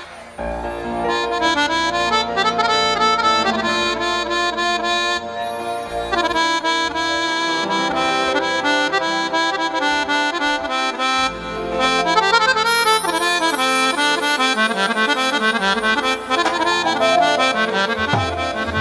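Harmonium playing an instrumental melody over held notes, the introduction to a Punjabi Sufi devotional song.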